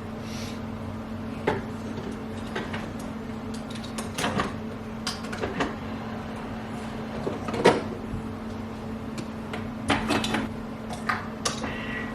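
Scattered knocks and clicks of cupboard doors, mugs and kitchen things being handled, over a steady low hum. The loudest knock comes about midway and a cluster comes near the end.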